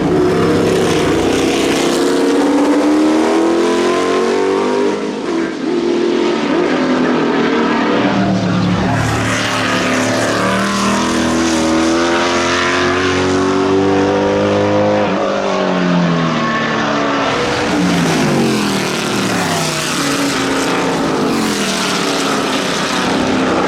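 Lola T70 Mk3B's Chevrolet V8 racing engine running hard on track, loud throughout. Its pitch climbs in steps through several upshifts and falls away as it comes off the throttle and changes down.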